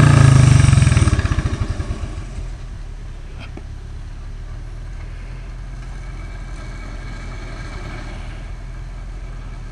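Garden pulling tractor engine running at high revs, then coming down about a second in, its firing pulses slowing, and settling into a steady low idle.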